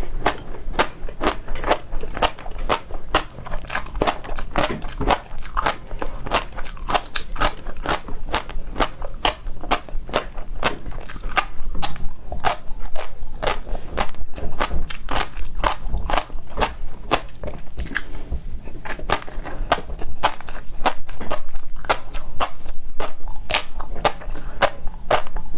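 Close-miked eating of seafood: rapid crunching and crackling chews, about three to four a second, with wet clicks of the mouth.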